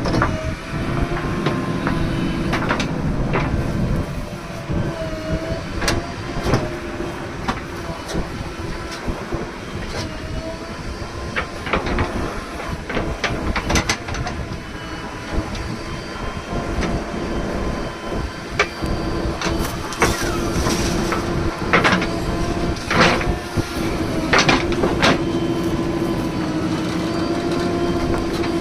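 JCB 3DX backhoe loader's diesel engine running steadily under work, with repeated sharp metallic clanks and knocks from the bucket and arm, more frequent near the end.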